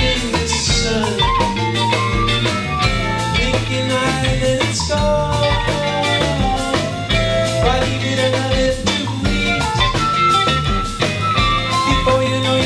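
Live band playing with drum kit, bass and melodic instruments over a steady beat, its held notes sliding between pitches.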